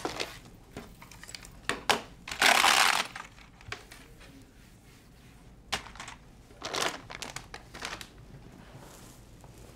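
Antibacterial wipe rubbed briskly across a desktop in short separate swipes, with plastic rustling and a few light clicks and knocks. The loudest swipe comes about two and a half seconds in.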